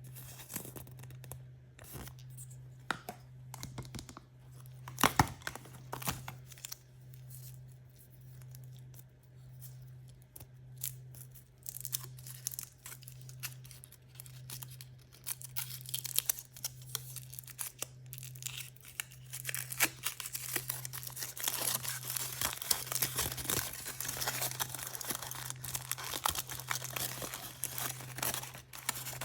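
Hands tearing open and crinkling the packaging of blind-bag surprise toys, with scattered clicks and a sharp snap about five seconds in. The crinkling turns dense and continuous in the last third.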